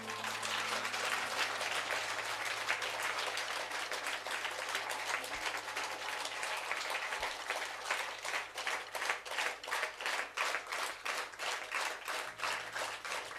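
Audience applauding: at first a dense, even clatter of many hands, which about eight seconds in falls into unison rhythmic clapping at roughly three claps a second.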